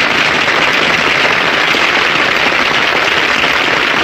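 Audience applauding steadily, a dense even crackle of many hands clapping.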